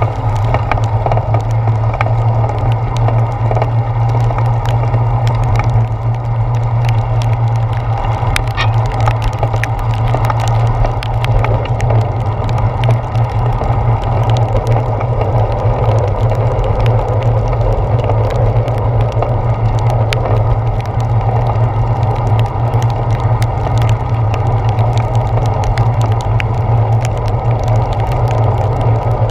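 Steady, muffled low rumble of a bicycle riding on wet pavement, heard through a handlebar-mounted GoPro's waterproof housing, with many small sharp taps of raindrops hitting the housing.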